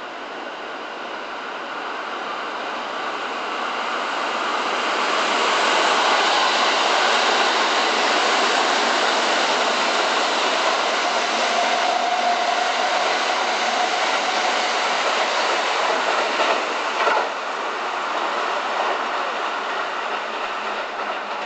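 Kintetsu Series 21 electric train (9820 and 9020 series sets) passing through the station without stopping: the rail noise builds as it approaches, holds loud while the cars run past, and eases off as it goes away. A sharp knock sounds about three-quarters of the way through.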